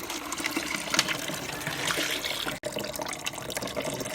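Running or splashing water, an uneven rushing with small clicks, that cuts out for an instant about two and a half seconds in.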